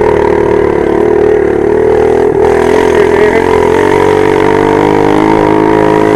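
Small 110cc engine running under steady throttle while riding, its note wavering slightly up and down in pitch.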